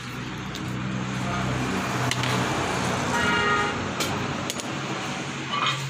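Steady engine hum with a rushing noise like road traffic, and a short horn-like toot about three seconds in.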